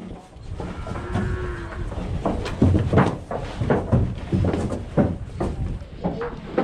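White zebu cattle jostling in a wooden corral chute: many sharp knocks of hooves and bodies against the boards over a low shuffling rumble. There is a brief moo about a second in.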